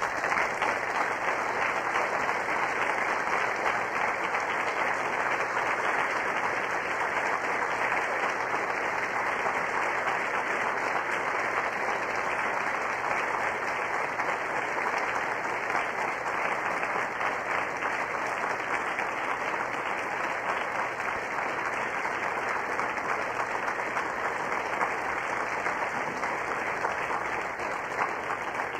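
A large audience applauding, dense steady clapping that starts all at once and begins to die away near the end.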